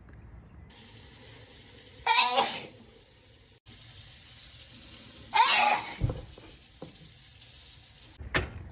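A person sneezing in a fit: two loud voiced 'achoo' sneezes about three seconds apart, with a third starting near the end, over a faint steady hiss.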